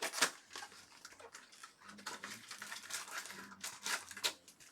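Trading cards and packs being handled: a quick run of rustling and sliding with light taps.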